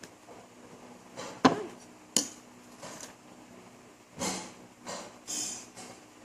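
Tableware sounds while eating: two sharp clinks of a utensil against a dish about a second and a half and two seconds in, followed by a few short noisy sounds.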